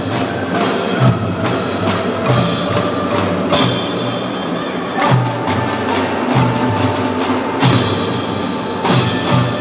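Children's drum band playing: marimbas and xylophones struck with mallets over a steady drum beat of about two strokes a second, with a crash about three and a half seconds in.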